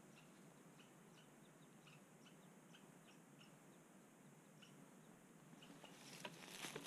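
Near silence with faint, short, high chirps repeating irregularly two or three times a second; soft rustling and clicks start near the end.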